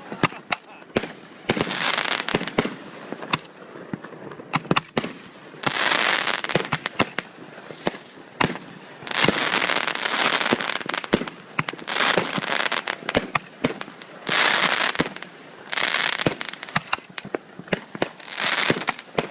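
Consumer fireworks going off: a steady run of sharp firecracker bangs and pops, broken every few seconds by a second or two of dense hissing crackle.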